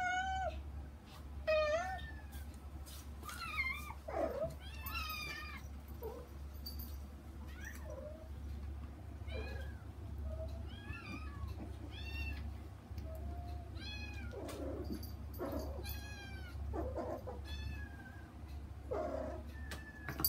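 Kittens meowing again and again, more than a dozen short high calls that rise and fall in pitch, with a few rougher, noisier cries among them, over a low steady hum. They are kittens calling to get through to their mother.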